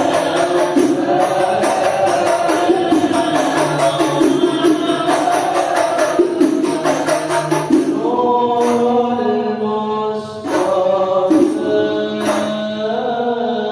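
Shalawat devotional music: voices singing together over fast rebana frame-drum beats with jingling, then about eight seconds in a lead voice sings long held, gliding notes over sparser drum strikes.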